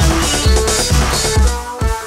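Electronic backing track of a pop song, a steady kick drum about two beats a second under held synth notes. The beat drops out about one and a half seconds in, leaving the synth notes.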